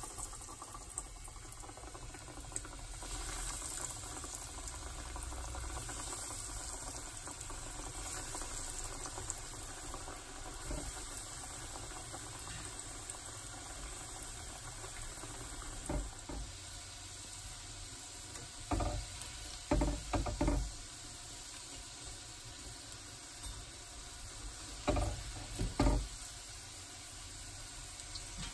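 Hot oil bubbling and sizzling as breadcrumb-coated vegetable rolls deep-fry in a small metal wok. A few sharp knocks come in the second half, several of them close together in pairs.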